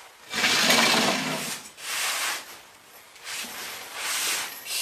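A firefighter crawling in turnout gear and an SCBA: a series of rasping, hissing bursts from the gear rubbing and scraping on a wooden floor and from breaths drawn through the mask's air regulator. The loudest burst comes about a third of a second in, followed by shorter, fainter ones roughly once a second.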